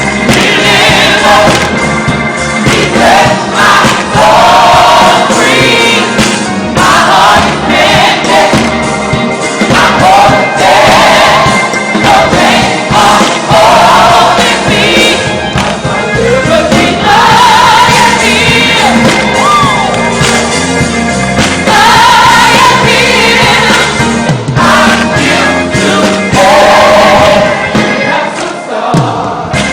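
Gospel praise music: voices singing a praise song in phrases, over a steady instrumental accompaniment.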